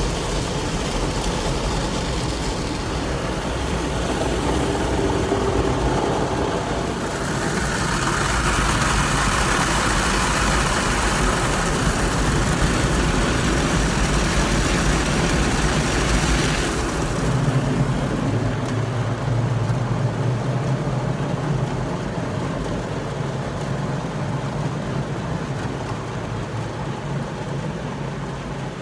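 Automatic drive-through car wash heard from inside the car: brushes and water working over the body with a constant rumble. About a quarter of the way in, a loud hissing spray starts; it cuts off suddenly just past halfway, leaving a steady low machine hum.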